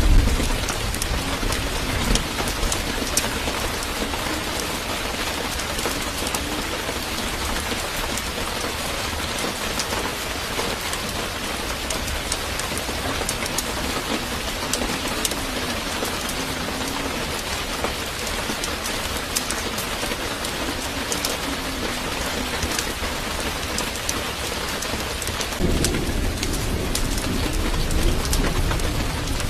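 Steady rain with a dense patter of drops, and a low rumble that comes in near the end.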